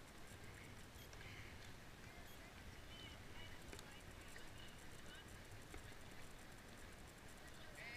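Near silence: faint outdoor background with a few faint, brief distant calls.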